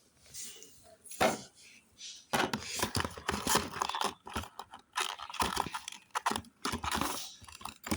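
Packaging being handled and torn open: a few separate rustles, then dense crinkling and tearing from about two seconds in.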